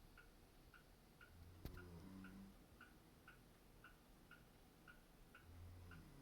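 A clock ticking evenly about twice a second, faint and close to the floor of hearing. Through it come two faint low snores, one a little over a second in and another near the end, and a single sharp click about a second and a half in.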